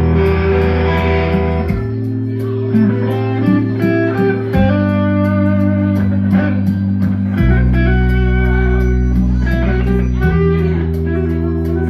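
A band playing: electric guitar picks out a melody over bass notes that change about every three seconds, with a steady cymbal tick keeping the beat.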